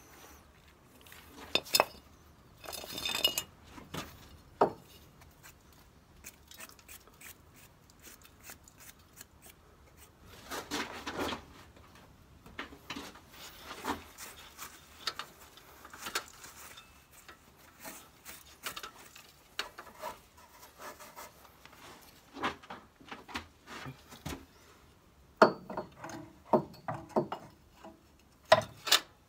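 Irregular clinks, knocks and scraping of metal tools being handled, scattered with short pauses and a louder run of knocks near the end.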